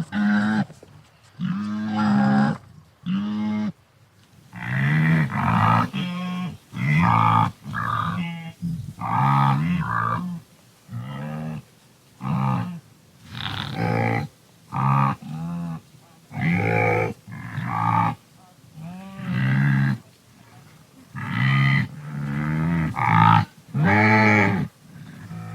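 Wildebeest (gnu) calling: a long series of short, low, pitched calls, roughly one a second with brief pauses between, several overlapping as if from more than one animal.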